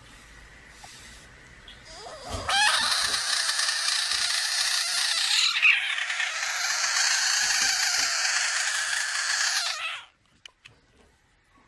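Budgett's frog screaming: one long, loud, hissy scream of about seven and a half seconds, with a brief catch about halfway through. It stops suddenly, and the rest is near silence. This is the defensive distress scream of a threatened, puffed-up frog.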